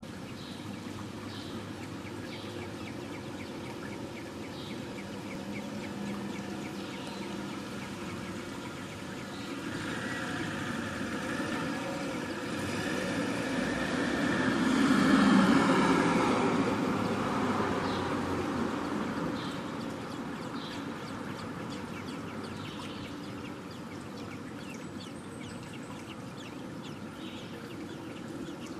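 Outdoor traffic noise, with a passing road vehicle that swells to its loudest about halfway through and slowly fades. A few faint, short, high chirps sound now and then above it.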